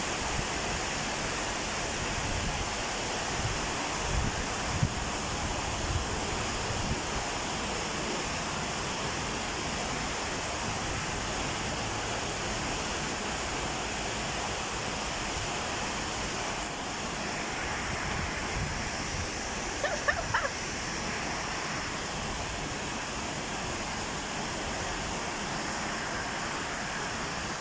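Heavy rain falling, a steady even hiss, with a few low thumps in the first few seconds and a brief faint call-like sound about twenty seconds in.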